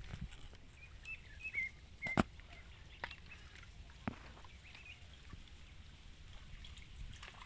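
Outdoor waterside ambience with a few short bird chirps in the first couple of seconds and several sharp clicks, the loudest about two seconds in.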